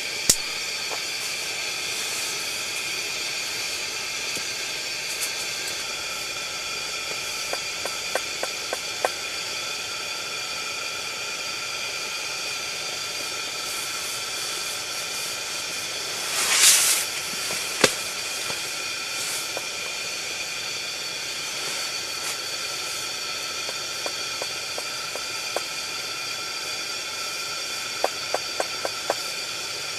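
Steady hiss of a chrome pressure lantern burning. Scattered light clicks come in a few small clusters, and about halfway through there is a short, louder rush of noise followed by a sharp click.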